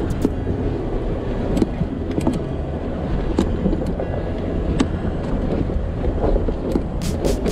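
Toyota LandCruiser 79 Series driving slowly over a rocky off-road track: a steady low rumble of engine and tyres, with scattered sharp knocks and clunks as it rides over stones.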